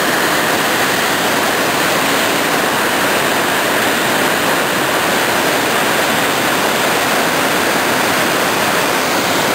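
Vachirathan waterfall pouring close by: a loud, steady rush of falling water with no breaks or changes.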